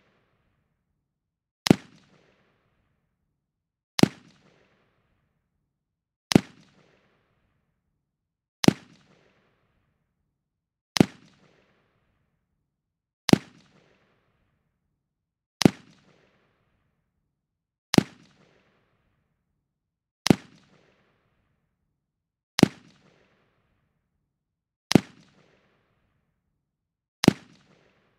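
Machine gun sound effect: a single sharp shot repeating evenly about every two and a quarter seconds, twelve times, each followed by a short decaying tail.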